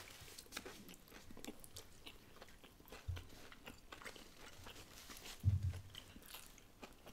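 Quiet chewing of a mouthful of fried chicken sandwich on a glazed-donut bun: soft crunching and wet mouth clicks. A short closed-mouth hum comes about three seconds in, and a louder 'mm' about five and a half seconds in.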